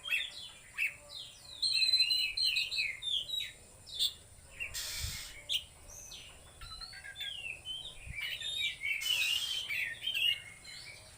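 Oriental magpie-robin (kacer) singing a fast, continuous run of varied chirps and whistled phrases. Two short bursts of noise cut in partway through.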